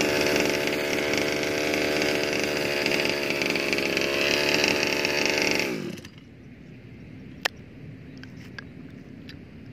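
Small two-stroke gasoline engine of a Rovan Baja RC buggy idling steadily on its freshly overhauled carburetor. It winds down and stops about six seconds in, and one sharp click follows a little later.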